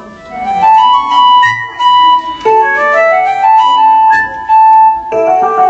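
Instrumental music with a piano-like keyboard playing a melody of held notes: the introduction to a children's song, before the singing comes in.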